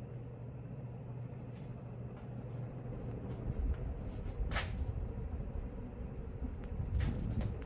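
Emerson 1895 Series 52-inch ceiling fan with a stack motor running on high: a steady motor hum under the rush of moving air, with a few brief louder whooshes around the middle and near the end.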